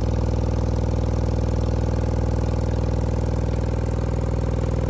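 A pair of Sundown Audio U-6.5 6.5-inch subwoofers playing a 20 Hz test tone at high power without an enclosure: a loud, steady low buzzing drone as the cones make long strokes.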